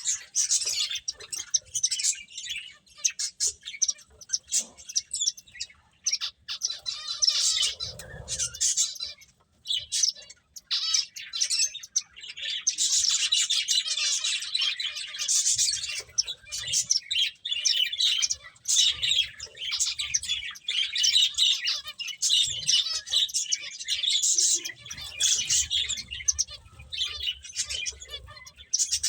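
A group of pet finches chirping continuously, with many short, high calls overlapping in quick succession. A few low thuds sound under the calls.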